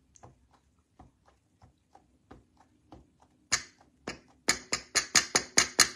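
Rubber rose stamp on a clear acrylic block being tapped repeatedly onto an ink pad to ink it: light taps at first, then a run of sharp clicks, about four a second, in the second half.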